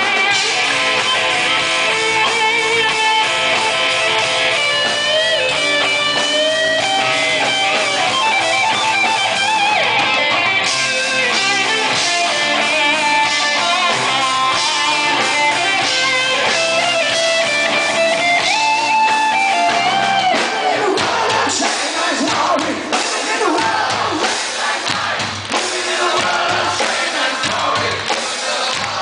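Hard rock band playing live through a loud PA, recorded from the crowd: a lead electric guitar solo of long held, bending notes over drums and bass. From about twenty seconds in the drums come more to the fore.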